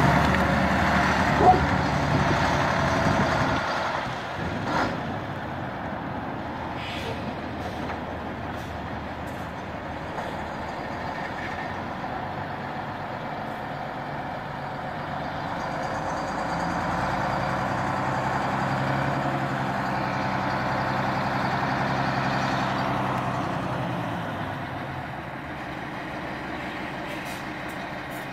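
DAF 2800 6x4 tipper truck's diesel engine running as the truck pulls away, loud for the first few seconds, then fading. It swells again for several seconds past the middle as the truck swings round and comes back across the yard, then eases off; a brief sharp noise sounds about five seconds in.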